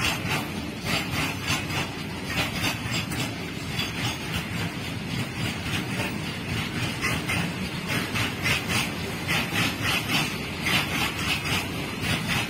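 Loaded BOXN open-top freight wagons running past at speed: a steady rumble of steel wheels on rail with a continuous, rhythmic clickety-clack.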